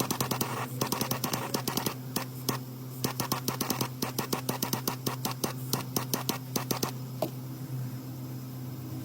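A rapid run of sharp clicks, several a second, over a steady low hum; the clicks stop about seven seconds in.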